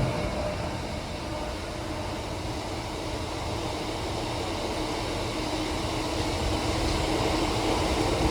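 A train rolling past on the line: a steady rumble with a low steady hum, after a louder passage fades in the first second.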